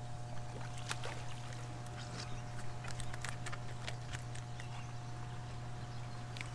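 Scattered light clicks and taps of a white bass being swung aboard and handled on a boat deck, over a steady low hum.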